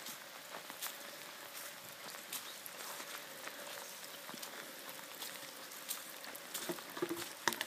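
Rain falling on a waterlogged lawn: an even hiss dotted with many sharp, close drop ticks, a faint steady hum underneath and a few louder taps near the end.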